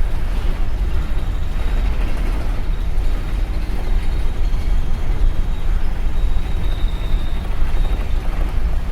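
Steady, loud low rumble with a rushing noise over it, the running sound aboard a large car ferry.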